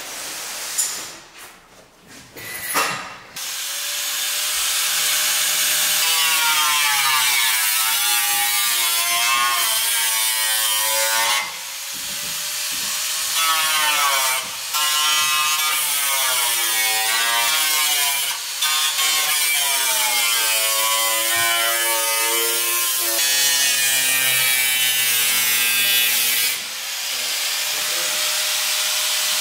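Angle grinder with a cut-off disc cutting through a car's sheet-metal floor pan. After a few knocks, the motor starts about three seconds in; its whine sinks and wavers in pitch as the disc bites into the metal and rises again when it runs free, with a few short breaks.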